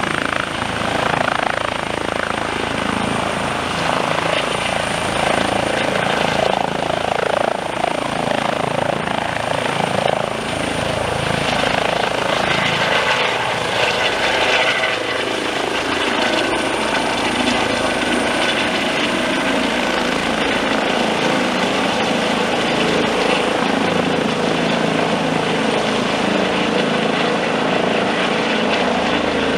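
Eurocopter EC135 twin-turbine helicopter lifting off and climbing away. Its rotor and engines run at a steady loud level, with a constant high turbine whine.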